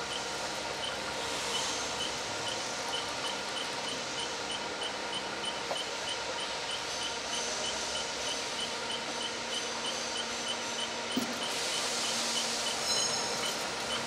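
Tracked firefighting robot driving, its drive giving a steady whine under a mechanical hum, with a high beep repeating about three times a second through most of the stretch: the robot's radar obstacle-avoidance warning.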